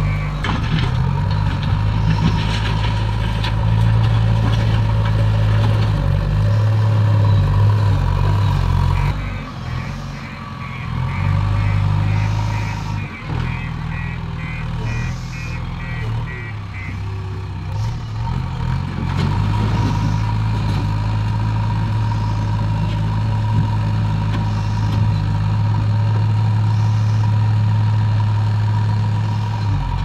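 JCB 3DX backhoe loader's diesel engine running under working load, a steady deep drone. For several seconds near the middle, a reversing alarm beeps about twice a second.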